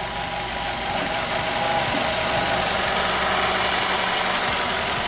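Nissan Qashqai's 1.6 engine idling steadily with its freshly rebuilt Jatco JF015 CVT engaged in Drive and the brake held. The run is even, with a faint steady whine and no sudden knocks; the mechanic judges that the original abnormal transmission noise is gone.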